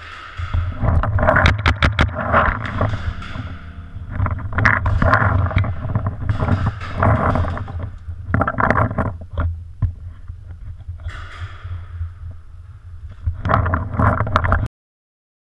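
Rumbling handling and wind noise on a camera mounted on a paintball marker, with repeated sharp clicks and pops over it. The sound cuts off suddenly near the end.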